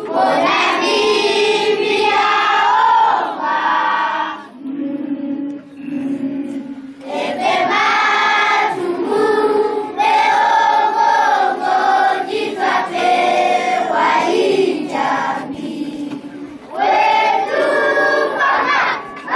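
A choir of primary-school children singing their school hymn in phrases, dropping to quieter passages about five seconds in and again near the end.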